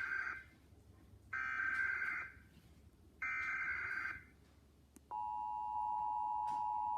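Emergency Alert System SAME header: three bursts of data tone about a second long with second-long gaps, the first already under way. About five seconds in, the steady two-tone EAS attention signal starts, marking the alert about to be read.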